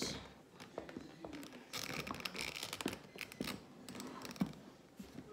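A large plastic Rancor action figure being handled and posed: its joints click and ratchet, with scattered knocks and a stretch of scraping plastic about two to three seconds in.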